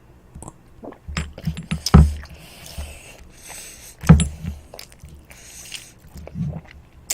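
Close-miked eating sounds of a child chewing toast: irregular crunches and mouth clicks, with two loud low thumps about two and four seconds in.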